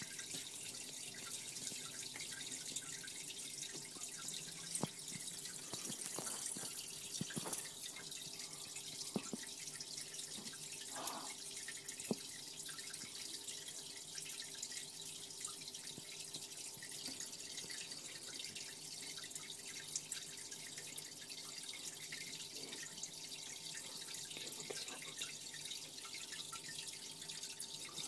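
Aquarium filter running: water trickling and dripping steadily over a faint low hum, with a few light clicks.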